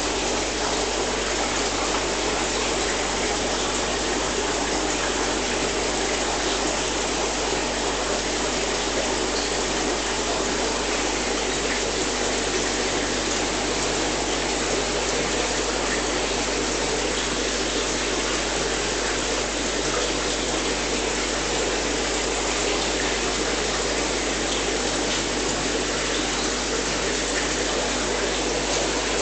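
Steady rush of running water from aquarium filtration, with a low steady hum underneath.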